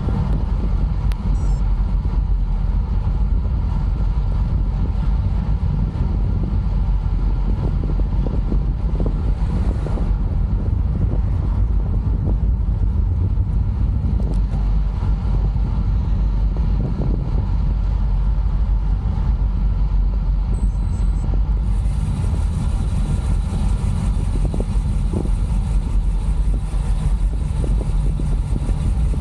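Steady, low wind rumble over the microphone of a camera mounted on a moving road bike, mixed with road noise from the tyres on tarmac.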